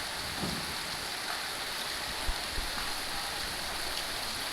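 Steady rush of flowing floodwater from heavy rain, with a brief low thump about two seconds in.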